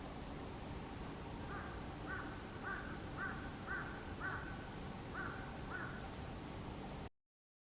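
A bird calling: a series of about eight short, evenly spaced calls, roughly two a second, over steady outdoor background noise. The sound cuts off abruptly near the end.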